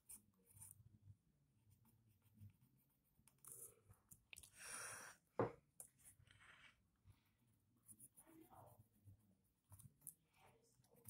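Faint scratching of a pencil drawing on paper, with a louder rustle about halfway through, ended by a sharp tap.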